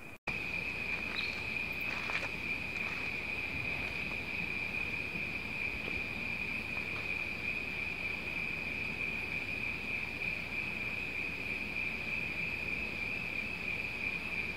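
Night insects calling in a steady chorus: one unbroken, high-pitched drone.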